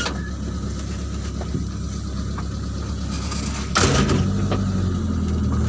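Truck engine idling steadily, heard from inside the cab. About four seconds in there is a short noisy burst, and then the engine note steps up, louder and fuller, and holds as it takes more throttle.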